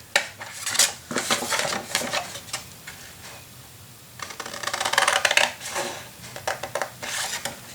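Large scissors cutting through paper: runs of crisp snips with paper rustling, in two main bursts with a quieter lull of about two seconds between them.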